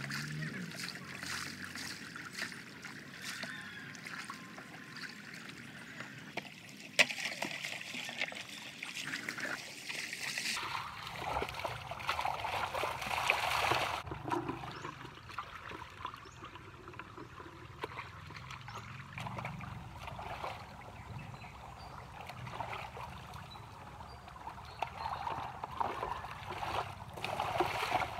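Water splashing and trickling as it is poured from a bucket over a motorcycle and runs off into a shallow stream, with feet sloshing through the water. A single sharp knock about a quarter of the way in.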